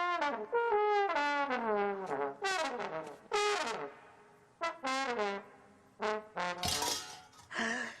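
Trombone making silly noises: a long note that slides down in pitch, then a string of short blasts, several of them sliding downward. A short noisy blast near the end.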